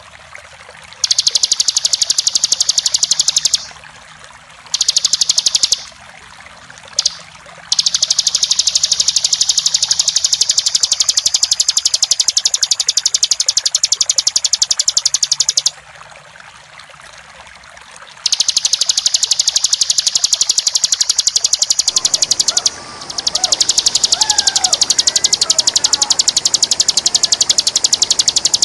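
Bar-winged prinia (ciblek) singing its long, rapid, high-pitched rattling trill in bursts of several seconds with short breaks, the continuous 'ngebren' song of a champion bird. A steady rush of running water sits underneath, and fainter chirps of another bird come in near the end.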